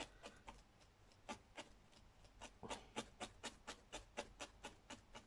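Felting needle stabbing repeatedly into wool roving on a foam pad, a run of soft, quick pokes at about three or four a second.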